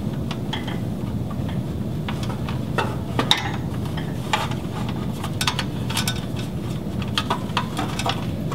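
Light clicks, taps and scrapes of the metal back cover of a CommScope Q3000 fiber chassis being slid into place and lined up by hand, over a steady low hum.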